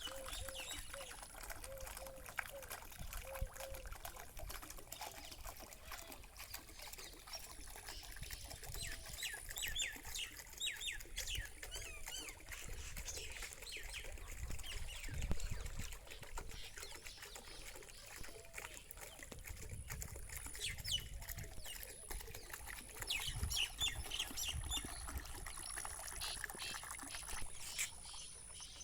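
Water flowing and trickling steadily, with many birds chirping in short quick calls, busiest in the second half. A thin, steady, high-pitched whine runs beneath them.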